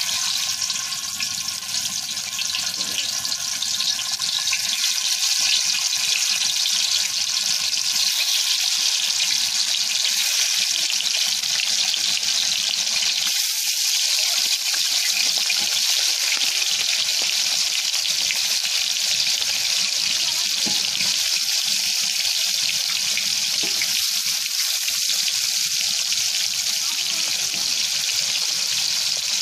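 Spiced tilapia pieces frying in hot oil in a large black karahi: a steady sizzle that grows louder over the first few seconds as more pieces are laid in, then holds.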